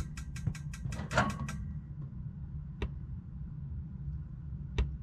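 A quick run of about eight sharp clicks or rattles in the first second and a half, then single clicks near three seconds and near the end, over a low steady rumble.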